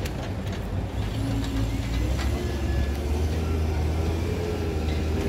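Motor vehicle engines running: a deep low rumble that grows louder about a second and a half in, with an engine note rising in pitch.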